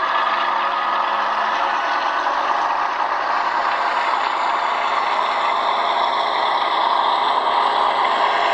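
Sound decoder in an H0 model of a DB class 216 diesel locomotive playing a steady diesel engine sound through its small loudspeaker, thin with almost no bass, growing a little louder near the end.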